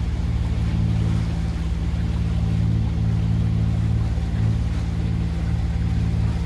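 A sailing yacht's engine runs steadily while the boat motors along, giving a constant low hum with a fine even pulse.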